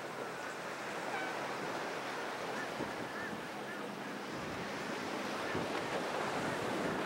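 Rushing water and wind noise on the microphone as a fishing boat with an outboard motor speeds through choppy inlet water, its hull and wake splashing. There is no distinct engine tone, and the rush swells toward the end as the boat comes closer.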